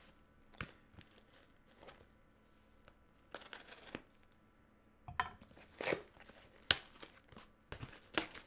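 Cardboard shipping box being cut and torn open by hand: intermittent ripping and crinkling of cardboard, tape and packing material. Among the rustles are a few sharp clicks, the loudest about two-thirds of the way in.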